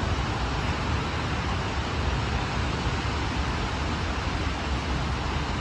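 Steady background noise on an open-air station platform: an even rushing hiss over a low rumble, with no separate events.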